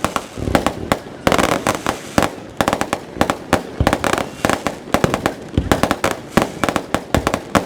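Fireworks display: a dense, unbroken run of bangs and crackles, several reports a second, sped up to double speed.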